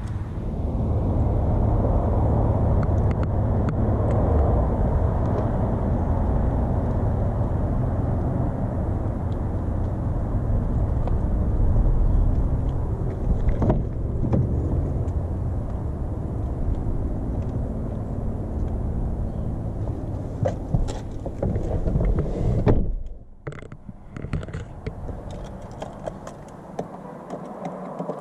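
Wind rumbling on a body-worn camera's microphone outdoors, with a sharp click about halfway through as the car's door handle is pulled. Near the end come a few knocks and the car door shutting, after which the sound drops to a quiet cabin hush.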